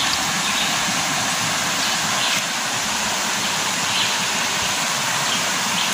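Steady rushing of river water, an even noise with no break.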